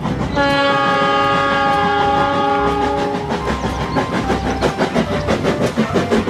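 Train sound: a long multi-note horn blast for about three seconds, then the rhythmic clickety-clack of wheels running over rail joints.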